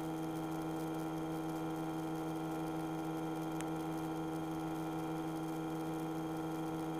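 Steady electrical hum from the light aircraft's intercom audio feed while the microphones are gated off, with a single faint tick about halfway through.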